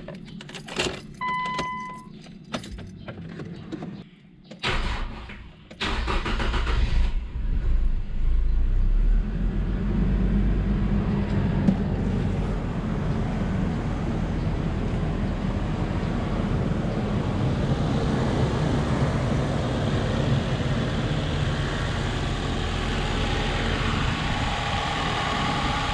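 Nissan Silvia S15's four-cylinder engine started: a few clicks and a short electronic beep, a brief crank, then the engine catches about six seconds in and idles steadily. This is the first start after exhaust manifold work, and the owner judges it to be running fine with no exhaust manifold leak.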